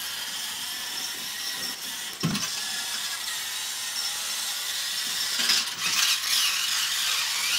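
Small toy car's motor and gears whirring steadily as it drives across carpet, with a dull thump a little over two seconds in.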